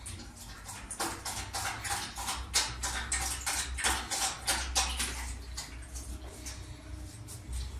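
A puppy lapping water from a plastic tray: a quick, irregular run of short lapping clicks starting about a second in and thinning out near the end.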